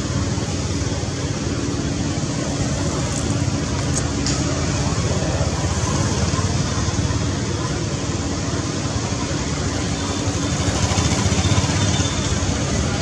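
Steady outdoor background noise: an unbroken low rumble and hiss with a faint steady hum.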